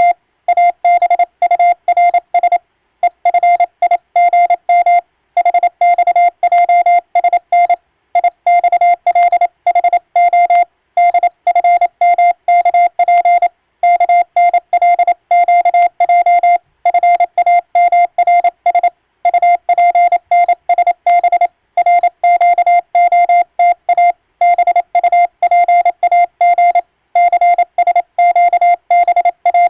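Morse code sent on an electronic keyer: one steady beep tone keyed on and off in quick dots and dashes, with short pauses between groups, sending an English-language radiotelegram as radiotelegraph operator's sending-test practice.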